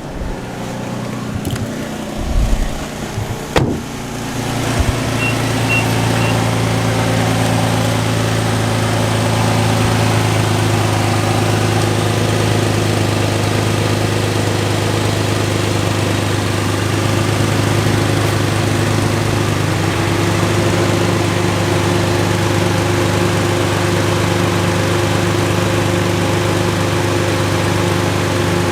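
2006 Infiniti G35's V6 idling steadily, with the exhaust blowing out through a cracked flex joint where the catalytic converter meets the Y-pipe; the leak stays audible even with the exhaust warm, the sign of a large hole. A few knocks in the first few seconds.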